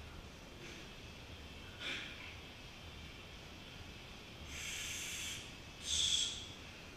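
Hard, noisy breathing of a person recovering from exertion: a short breath about two seconds in, a longer breath near the five-second mark, and a louder, sharper breath about six seconds in.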